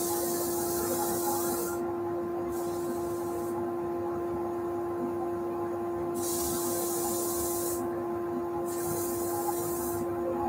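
A small piece of wood pressed against an abrasive sanding drum spinning on a wood lathe, giving four separate passes of hissing, each lasting one to one and a half seconds, over the machine's steady hum.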